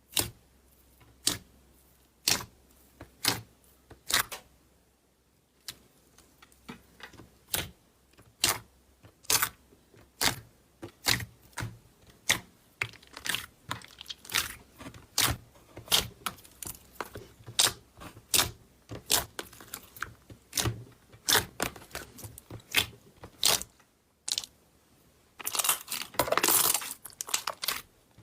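Slime being squeezed and poked, making irregular sharp clicky pops, roughly one or two a second, with a longer crackling squish near the end.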